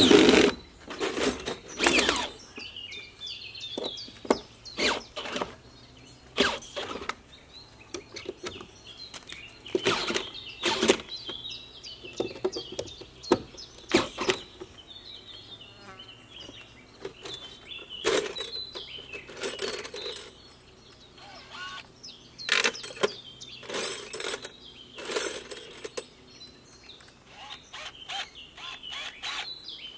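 Irregular knocks, clinks and a few scraping sounds from hand work on the timber of the house, with birds chirping faintly in the background.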